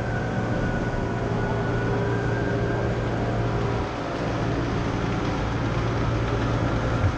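Running noise of a large-scale garden-railway model train heard from on board: wheels rolling on the track with a steady low hum and a faint high whine, and a short click near the end.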